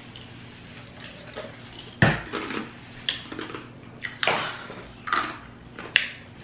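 Tabletop clatter of a meal: a drinking glass handled and set down on the table, with several sharp knocks and clinks, the loudest about two seconds in and others near four and six seconds.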